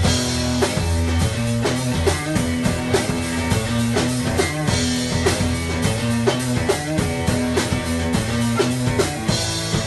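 Background rock music with guitar and drums keeping a steady beat.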